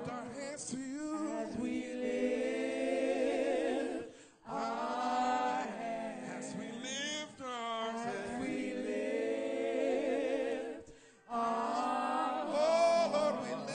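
Gospel praise team singing with vibrato, led by a man and a woman on microphones. The singing breaks off briefly about four and a half seconds in and again near eleven seconds.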